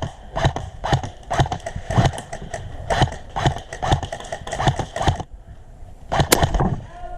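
Quick, irregular footfalls on a hard floor with gear knocking and clattering, several a second. They stop abruptly about five seconds in, and a short burst of knocks follows about a second later.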